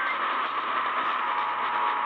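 Radio receiver hiss and static from a weak, distant station, with a faint steady whistle tone coming in about a second in.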